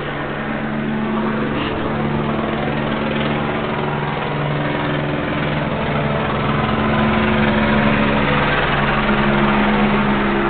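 A motor running steadily, a loud hum whose pitch shifts slightly up and down.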